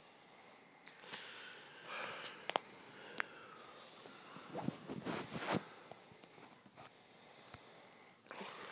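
Layered everyday indoor recordings: breathy rustling noises with a few sharp clicks, and a busier patch of rustling about halfway through.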